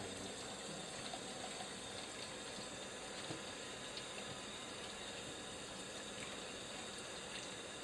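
Steady rush of running water at a fish-cleaning counter, with a few faint clicks as the knife works through the fish on the cutting board.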